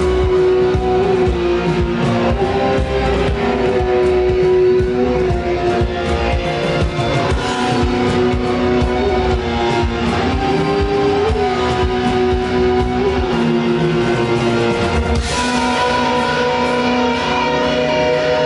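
Live band playing an instrumental rock opening, electric guitar lines over drums. The held notes change about fifteen seconds in.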